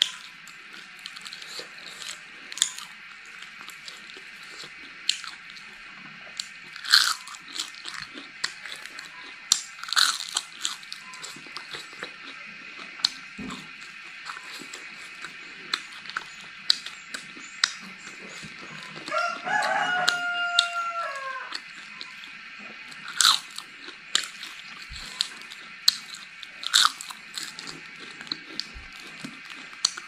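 Close-up crunching and chewing of crispy deep-fried cicadas, sharp separate crunches every second or two. About two-thirds of the way through, a pitched call of about two seconds, stepping down in pitch, sounds over it.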